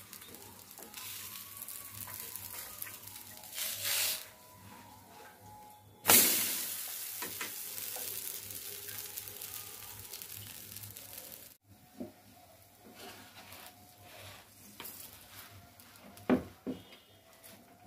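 Dosa batter sizzling on a hot iron tawa. A sudden loud sizzle about six seconds in fades over several seconds, and two short knocks come near the end.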